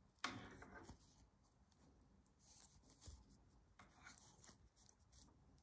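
Faint clicks and rubbing of thin metal knitting needles and yarn as stitches are worked, with a sharper tick just after the start and a few lighter ones later.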